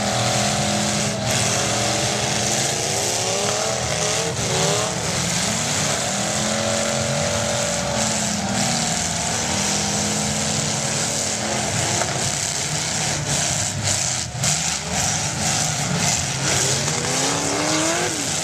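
Several demolition derby cars' engines revving up and down at once, with sharp bangs of car-on-car hits scattered through, several in quick succession late on.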